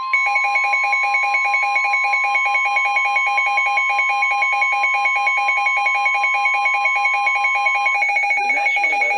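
NOAA Weather Radio's steady 1050 Hz warning alarm tone, which cuts off about eight seconds in, sounding together with a rapid, evenly pulsing electronic alarm beep that keeps going. Near the end a voice begins reading the next warning over the beeping.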